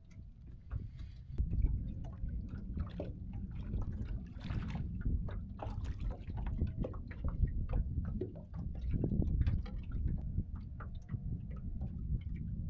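Water lapping and splashing at the side of a small fishing boat, over a low rumble of wind on the microphone, with scattered knocks and clicks.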